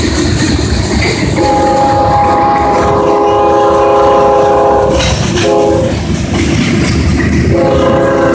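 Diesel freight locomotive's air horn sounding as it approaches: one long blast of several seconds, a short blast, then another long blast starting near the end. Underneath, a passing freight train's cars rumble and clatter steadily over the rails close by.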